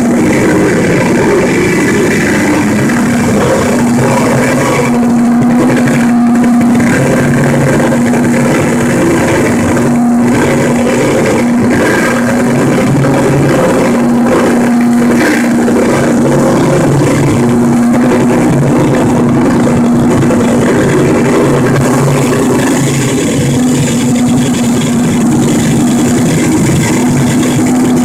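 Loud noise music from a chain of guitar effects pedals played through a Crate combo amplifier: a dense, distorted wall of noise with a low droning tone that cuts out and comes back every few seconds.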